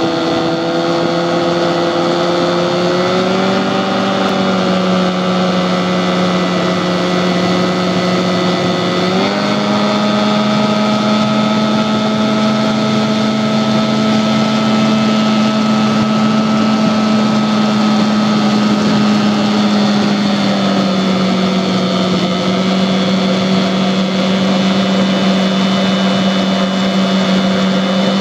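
Modified 15 hp Johnson two-stroke outboard with a dry-stacked exhaust running at speed, pushing a small jon boat. It holds a steady note that steps up slightly about three seconds in and again about nine seconds in, then eases down a little around twenty seconds in.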